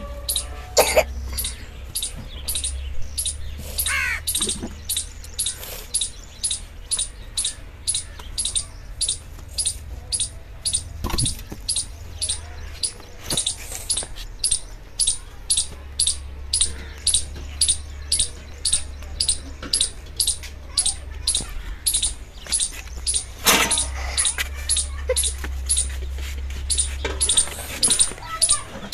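A bird chirping over and over, short high chirps at about two a second, over a low steady rumble. A knock comes about 11 seconds in, and a louder clatter about 23 seconds in.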